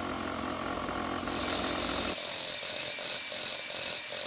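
Bosch GBH 18V-45C cordless SDS-max rotary hammer running. About two seconds in, the low rumble drops away and a high whine is left, pulsing about three times a second.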